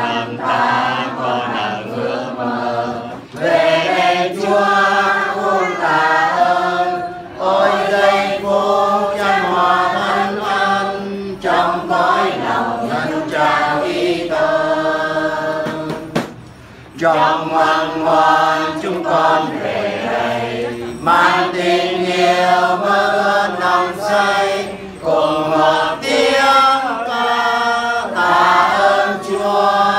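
Voices singing a slow, chant-like hymn in long, held phrases, with short breaks about three seconds in and near the middle.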